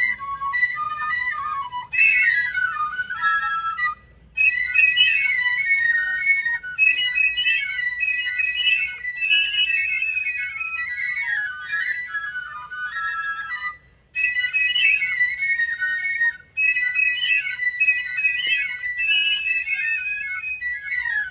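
Fifes playing a march tune, high and shrill, with a few brief breaks between phrases.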